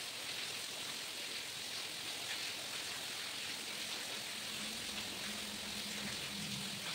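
Steady, even hiss of noise with a few faint ticks.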